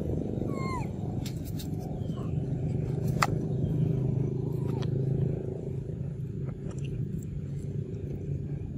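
A steady low motor-like rumble, with a short high falling squeak about half a second in and a few sharp clicks.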